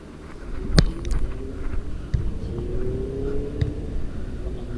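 A volleyball being struck by hand: one sharp smack under a second in is the loudest sound, with fainter ball contacts later. Underneath runs a low wind rumble on the head-mounted action-camera microphone and a drawn-out engine hum rising slightly in pitch.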